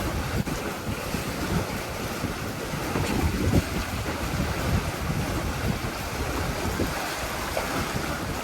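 Wind buffeting the microphone in irregular gusts over a steady wash of sea surf.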